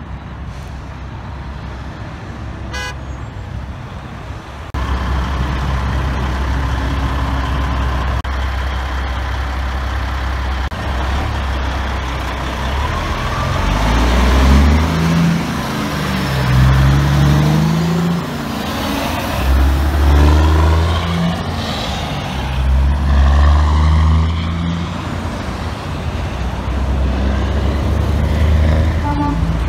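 Diesel engine of a Kenworth semi-truck pulling a lowboy trailer as it accelerates past and shifts up through the gears. The engine pitch climbs and drops several times in the middle of the clip, over steady traffic noise.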